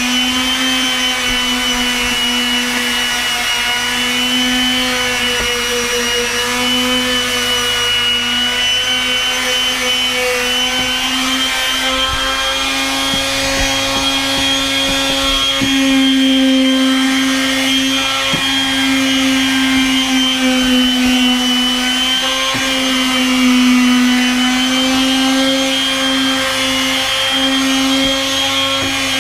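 Makita random-orbit palm sander running continuously on deck boards: a steady motor whine whose pitch wavers slightly as pressure on the pad changes, with sandpaper rasping against the wood.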